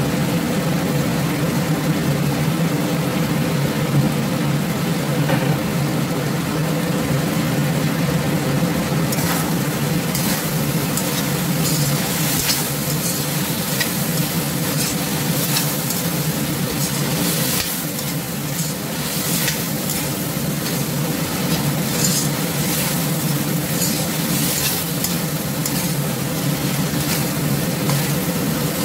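Okra, chicken and pork sizzling in a wok, with a spatula scraping and knocking against the wok again and again from about a third of the way in. A steady low hum runs underneath.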